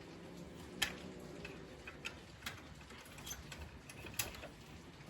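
A cat eating dry food, giving irregular small crunching clicks.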